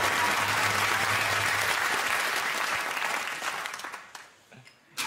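Studio audience applauding, dying away about four seconds in.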